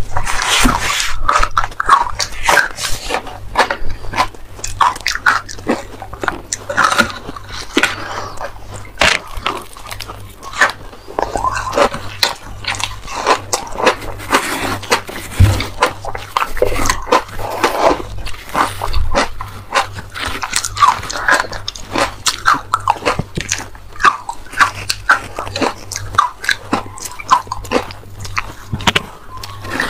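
Frozen matcha ice being bitten and crunched in the mouth: a dense, irregular run of sharp crunches and crackles, with two eaters' crunching layered together.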